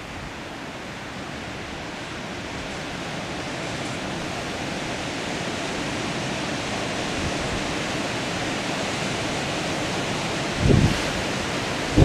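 Steady wind rushing through trees, slowly growing louder, with a gust buffeting the microphone near the end.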